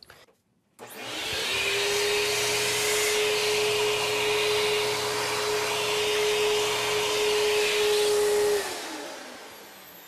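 Vacuum cleaner switched on about a second in, its motor spinning up and then running with a steady whine over the hiss of air sucked through the hose nozzle as dust and debris are drawn out of an electrical wall box. Near the end it is switched off and the motor winds down with a falling whine.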